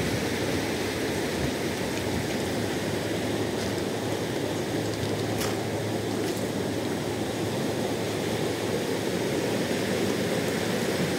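Steady rushing of fast-flowing river water, an even roar that does not let up.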